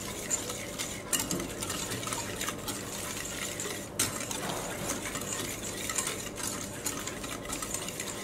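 Wire whisk beating a yogurt and spice marinade in a ceramic bowl: steady stirring with the wires scraping and tapping the bowl, and a sharper click about a second in and another around four seconds in.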